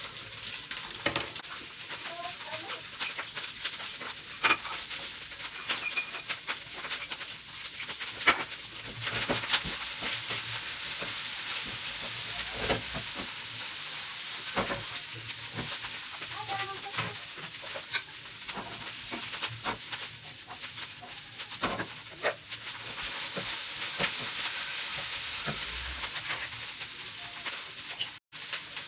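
Carrots sautéing in butter in a pan, a steady sizzle broken by frequent clicks and scrapes of a utensil stirring against the pan.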